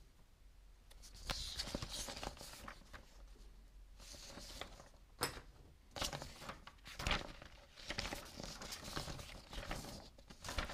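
Sheets of printed paper being handled and shuffled, rustling in irregular bursts, with a few sharp taps.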